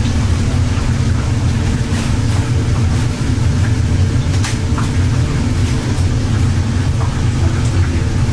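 Deep-fryer station: a steady low machine hum over the sizzle of oil frying chicken, with a few metal clicks as a wire skimmer and mesh basket lift fried chicken pieces out of the oil.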